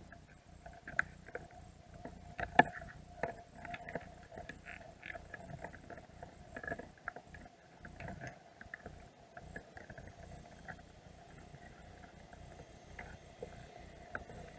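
Irregular clicks, taps and scrapes, recorded underwater, of Dungeness crabs' shells and claws knocking against one another and the bait container, with one sharp click standing out early on. A faint steady hum lies beneath.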